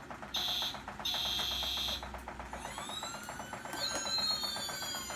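Toy fire truck's electronic sound chip playing: three high buzzing beeps, the last about a second long, then electronic siren tones that glide up and down, over a fast, even clicking.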